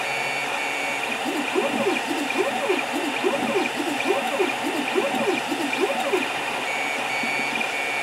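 Creality CR10 3D printer running at an 800% speed setting: its stepper motors whine in quick rising and falling pitches, several a second, as the print head darts back and forth laying down infill. Under them runs the steady hiss of the hotend cooling fan.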